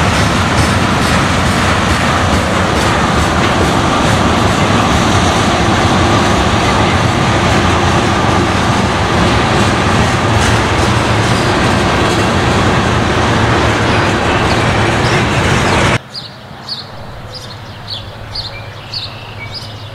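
Freight train rolling past close by, its tank cars and hopper cars making a loud, steady rumble and rattle on the rails. About sixteen seconds in this cuts off suddenly to a much quieter scene, with a run of short, high chirps repeating about twice a second.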